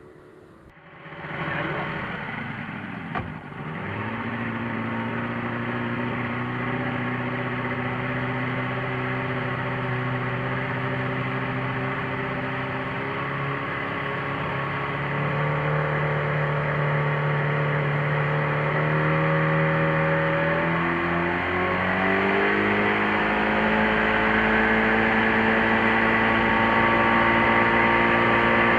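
Boat's outboard motor running at speed, heard from on board with the rush of the wake and wind. After a faint first second the engine comes in loud, and its pitch rises in two steps, around the middle and again a few seconds later. There is a short knock about three seconds in.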